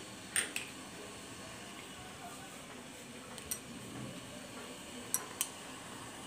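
A few light metallic clinks of a steel pan lid and cooking utensils over a steady faint hiss. There are two clinks about half a second in, one more about three and a half seconds in, and a close pair near the end.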